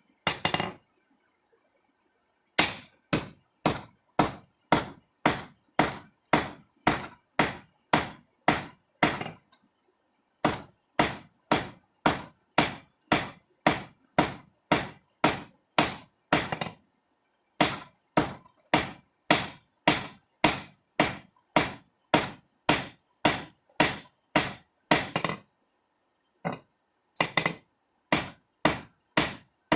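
Hand hammer striking hot grade 60 rebar on an anvil while forging a knife blade: sharp, ringing blows about two a second, in runs of several seconds with short pauses between.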